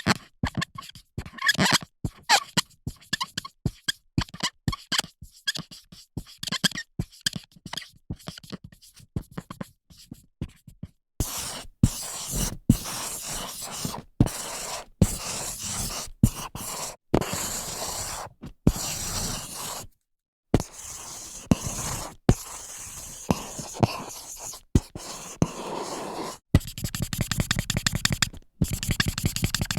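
Marker pen writing on a whiteboard: short separate strokes for the first ten seconds or so, then longer continuous drawing strokes. There is a brief pause around twenty seconds, and fast back-and-forth scribbling near the end.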